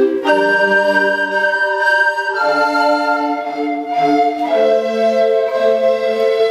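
A large recorder ensemble playing slow sustained chords, soprano to bass parts together; the chord changes about every two seconds, giving a smooth, organ-like sound.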